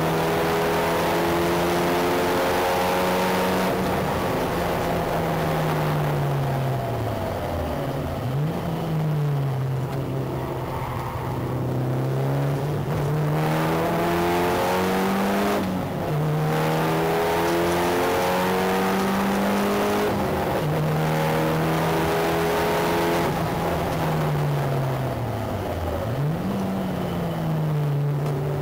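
Mitsubishi Lancer Evo VI's turbocharged four-cylinder engine driven hard on track, heard from outside the car with wind and tyre rush over the microphone. Twice the engine note falls away as the car slows and then jumps sharply back up, and in between it climbs under acceleration and drops suddenly once at a gear change.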